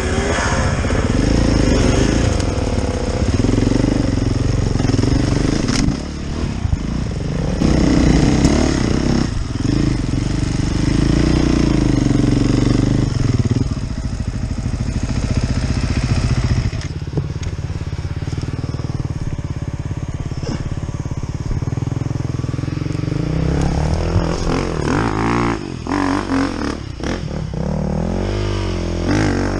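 Husaberg FE450 four-stroke enduro bike engine heard from the rider's helmet, revving up and down at low speed over rough rocky ground. The pitch rises and falls with repeated short throttle blips, most noticeably near the start and in the last few seconds.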